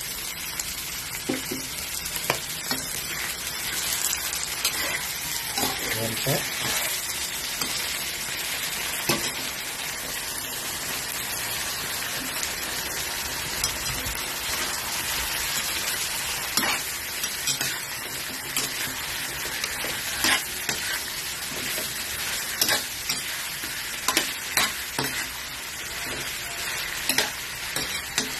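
Whole shrimp and sliced green chilies sizzling in hot oil in a metal wok. They are stirred with a metal spatula that clicks and scrapes against the pan now and then.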